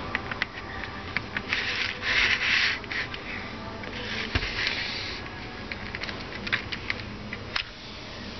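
Small metal and plastic parts clicking and scraping as the blade support roller is pried loose from an opened electric jigsaw's housing with a thin metal tool. There are scattered sharp clicks and two longer rasping scrapes, about two seconds and four to five seconds in.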